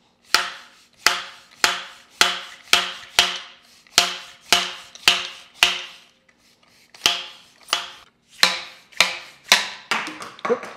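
Repeated sharp taps knocking the quick-release clamp off the anodized aluminium tube of a Feedback Sports Ultralight bike repair stand, each tap ringing briefly in the metal. About two taps a second with a short pause midway, then a quick rattle near the end as the clamp comes loose.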